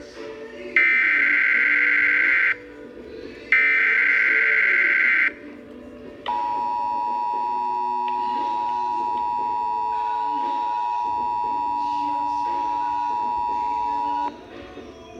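Emergency Alert System SAME header: two harsh digital data bursts of about two seconds each, a second apart, followed about six seconds in by the EAS two-tone attention signal (853 and 960 Hz) held steady for about eight seconds, then cutting off.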